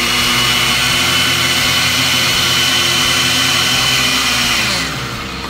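Oster countertop blender running steadily as it blends a liquid marinade, then switched off near the end, its motor winding down.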